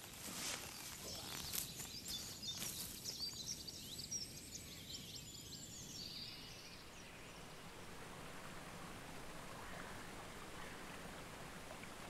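Birds singing, many quick high chirps and trills over a steady outdoor hiss, with a few rustles in the first seconds. The birdsong fades out about halfway through, leaving only the even hiss.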